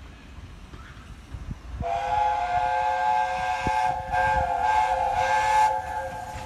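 A train sounds a long chime blast, a chord of several steady notes sounding together, starting about two seconds in with a short break near the middle, over the low rumble of the train.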